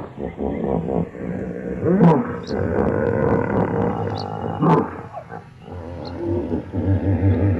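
Hippopotamus calling with a run of deep, pitched calls. Loud peaks come at the start, about two seconds in and near five seconds, then a fast pulsing series of low calls near the end.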